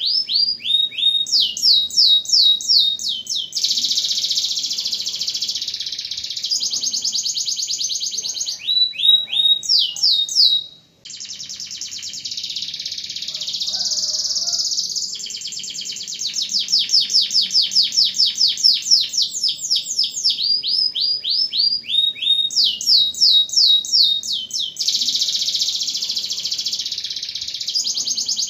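Domestic canary in full song: runs of quick repeated down-sweeping notes alternating with long, fast rolling trills, with a brief break about eleven seconds in.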